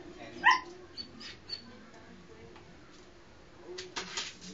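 Dog and cat at play: a single short, high squealing cry rising in pitch about half a second in, then a brief noisy scuffle near the end as the dog lunges at the cat.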